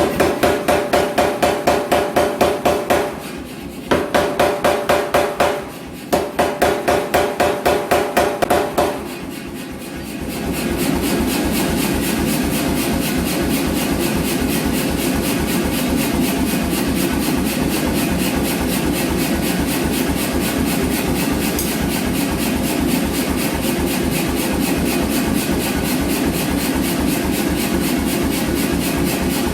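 A power hammer striking steel in quick, evenly spaced blows, about four a second, in runs broken by short pauses. After about ten seconds it settles into a faster, continuous run of hammering.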